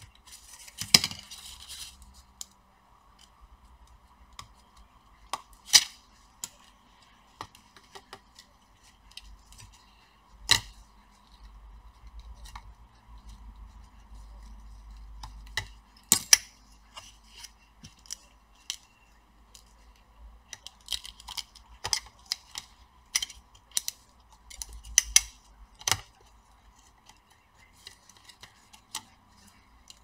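Irregular sharp clicks and knocks of laptop cooling-fan assemblies being handled and pressed into place in a laptop chassis, with a faint steady hum underneath.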